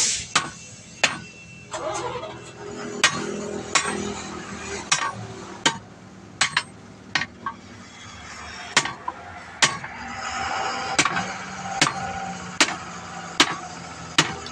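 Repeated hammer blows on a steel truck wheel rim, roughly one a second, as the tight tyre is driven onto the rim with a tyre lever and hammer. Traffic hum rises in the background about two thirds of the way through.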